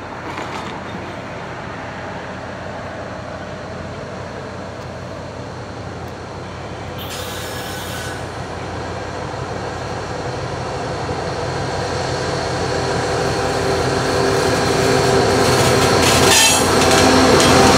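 Two GE ET44AC diesel-electric locomotives, each with a V12 four-stroke engine, leading a freight train as it approaches. The engine drone and rail noise grow steadily louder until the lead unit draws level near the end.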